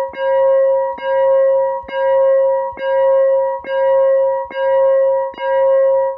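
Synthesizer imitating a Western-Cullen-Hayes Type 4 electronic railroad crossing bell: a ringing bell tone made of several pitches, struck again about every 0.9 seconds, seven or eight dings in a steady rhythm.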